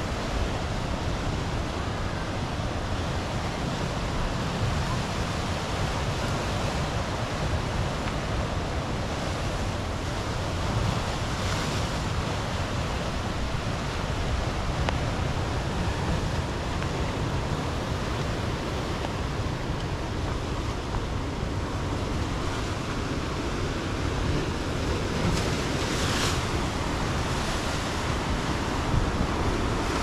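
Ocean surf breaking over black lava rocks, a steady wash with a louder crash twice, once about halfway through and once near the end. Wind rumbles on the microphone.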